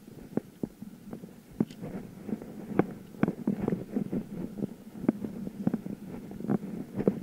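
Bicycle rattling as it is ridden, with irregular knocks a few times a second over a low rumble.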